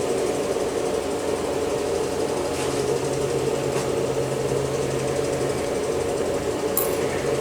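A steady machine hum with several even tones, a lower tone joining from about two and a half to seven seconds in, and a few faint clicks.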